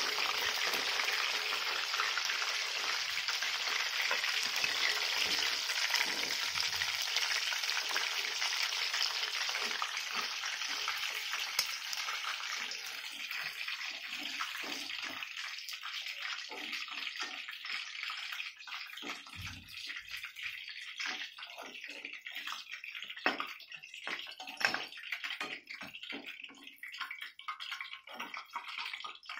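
Chicken pieces deep-frying in hot oil in a kadai, a steady sizzle that thins out over the second half as the pieces are lifted out. Scattered light clicks and taps of the metal slotted spoon against the pan and plate come through in the later part.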